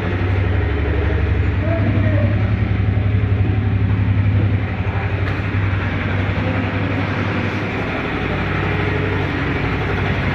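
Bajaj Maxima C three-wheeler's single-cylinder engine idling steadily with an even low pulse, a little louder for the first four and a half seconds and slightly softer after.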